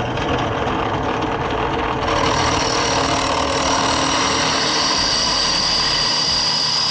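Drill press running, its 1/4-inch drill bit cutting down into the head of a hex-socket (Allen) bolt clamped in locking pliers. A high, steady whine from the bit cutting metal joins the motor sound about two seconds in and grows.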